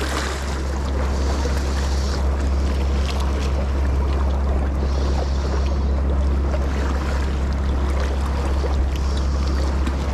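Steady low rumble under an even wash of noise, with scattered small clicks and rustles of hands handling a spinning reel and soft-plastic lure.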